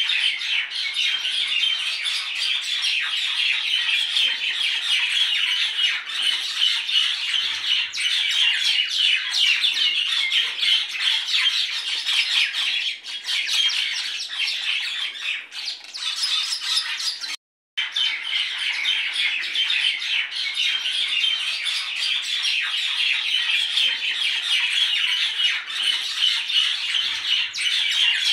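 Many birds chattering and squawking continuously in a dense chorus of short high calls, with a brief cut to silence about two-thirds of the way through.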